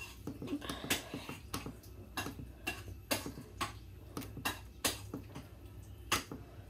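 A run of irregular sharp clicks as the controls of a stainless-steel oven are turned or set by hand, over a low steady hum.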